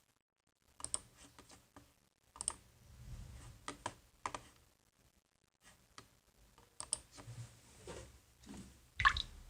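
Scattered clicks and taps of a computer keyboard and mouse, irregular, with one louder click near the end.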